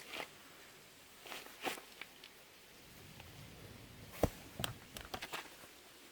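Scattered light clicks, knocks and rustles from hands threading baler twine through the needle of a small square baler. The sharpest knock comes about four seconds in, followed by a few quicker clicks.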